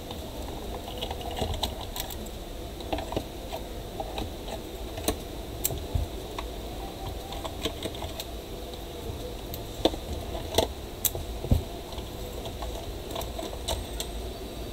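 Small screws being backed out with a hand screwdriver from the plastic housing of a Miniso A18 portable speaker: scattered light clicks and ticks of the screwdriver, screws and plastic parts, with a few sharper clicks about ten to eleven seconds in.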